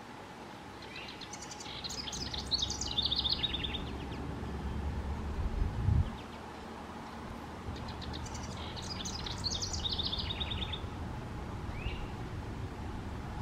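House wren singing two songs, each about three seconds long: a rapid, bubbly jumble of trilled notes that tumble downward in pitch. Between them, a low rumble swells and cuts off sharply about six seconds in.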